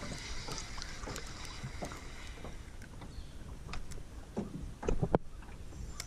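Scattered small clicks and knocks of a spinning rod and reel being worked, over faint water lapping, with a few louder knocks about four and a half and five seconds in.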